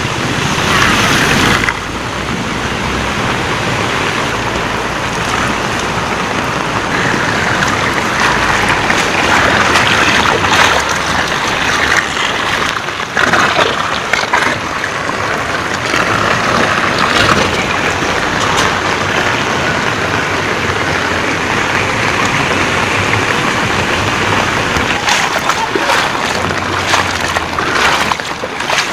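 Floodwater rushing steadily across a flooded road, mixed with falling rain.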